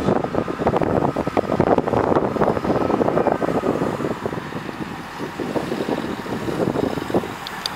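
Gusty wind rumbling and buffeting on the microphone, easing about halfway through, over a Great Western Railway Turbo diesel multiple unit running slowly into the platform.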